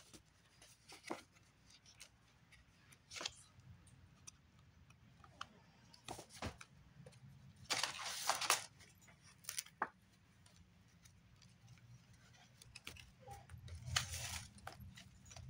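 Paper and wrapping being handled: scattered light taps and rustles, with louder bursts of crinkling about halfway through and again near the end.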